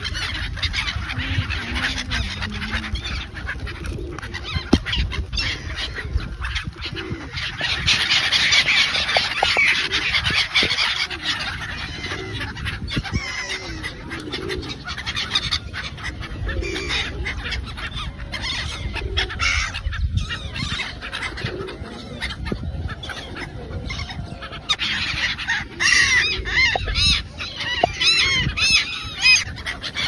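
A big flock of gulls calling without a break, a dense chorus of overlapping harsh cries. It is busiest about a third of the way in and again near the end, over a steady low rumble.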